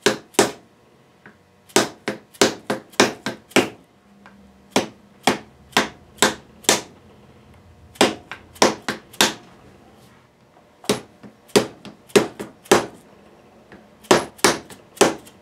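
Fret hammer tapping fret wire into the slots of a guitar's fingerboard extension: sharp, ringing taps in quick runs of several strokes, with short pauses between runs.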